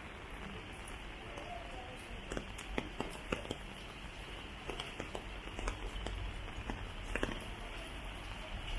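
Steady rain hiss on wet pavement, with irregular sharp ticks of drops scattered through it, most of them between about two and seven and a half seconds in.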